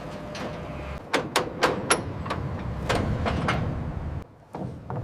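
A metal gate or trailer door sliding and banging: a quick run of sharp knocks and clatters over a low steady hum.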